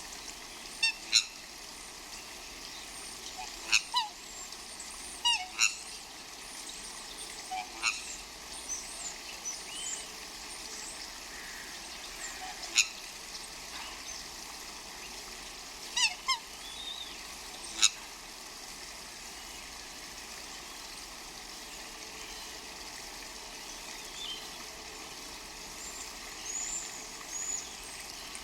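Swans honking: short, loud calls, some in quick pairs, scattered through the first eighteen seconds or so. Small birds chirp faintly and high throughout, over a steady rush of flowing brook water.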